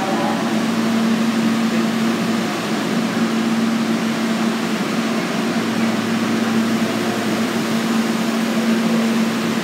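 Stopped R160 subway train humming steadily with its doors open, a single steady low tone over an even rush of fan-like noise from its onboard equipment.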